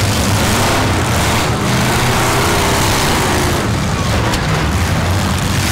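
Several demolition derby cars' eight-cylinder engines running together loudly, their pitch rising and falling as they are revved.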